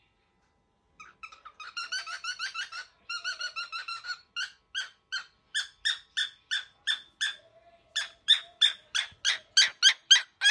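Young cockatiel calling: about a second in, a fast chatter of squeaky calls, then single sharp calls repeated about three times a second, growing louder toward the end.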